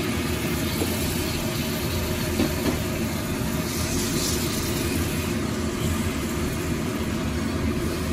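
Raw chicken pieces sizzling in hot oil and fried spices in an aluminium pot, moved about with a silicone spatula, over a steady low hum.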